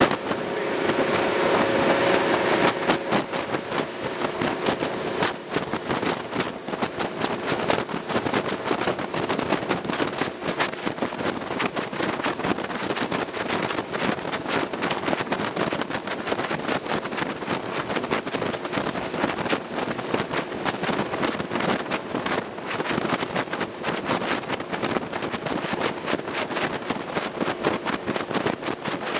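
Wind buffeting the microphone on a rigid inflatable boat under way at sea, over a continuous rush and splash of water along the hull. It is a steady, loud, gusty noise with no pauses.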